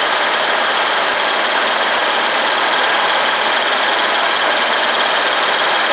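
Vehicle engine idling steadily with the air-conditioning compressor engaged and running, no longer clicking on and off, after a refrigerant top-up that left it still slightly low on charge.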